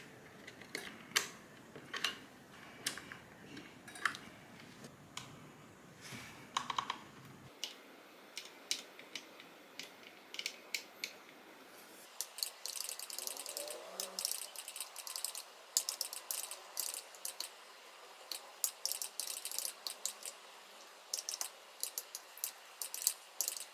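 Gamakay LK67 mechanical keyboard: a few scattered single key clicks, then fast steady typing from about twelve seconds in.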